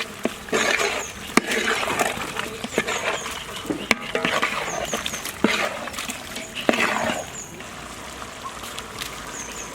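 Marinated chicken frying in butter and oil in a large pot while being stirred: sizzling rushes with several sharp knocks of the spoon against the metal, settling down for the last couple of seconds.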